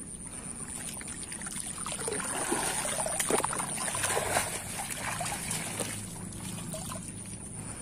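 Muddy stream water sloshing and trickling around a person wading and moving in it, with a few small splashes.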